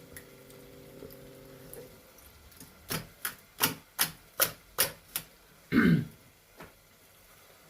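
A quick run of about eight sharp clicks or taps, roughly two to three a second, followed by one louder, lower, short knock-like sound, over a faint steady hum.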